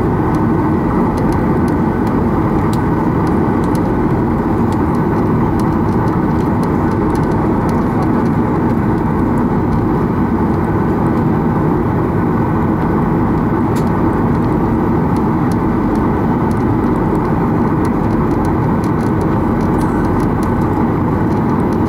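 Cabin noise of a Boeing 737-800 taxiing, its CFM56-7B turbofan engines at taxi power heard through the fuselage from a seat over the wing: a steady, even hum and rumble.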